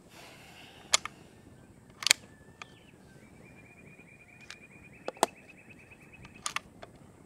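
Umarex Gauntlet .25 regulated PCP air rifle firing through its factory shroud: four sharp cracks a second to three seconds apart, some of them doubled. A faint rapid bird-like trill runs in the middle.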